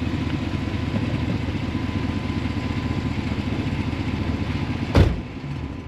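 Vehicle engine running steadily, with a low rumble, then a single loud thump about five seconds in, after which the engine noise drops away.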